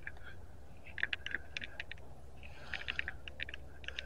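Footsteps crunching through a thick layer of dry fallen leaves, crackling in short clusters about a second in and again near three seconds.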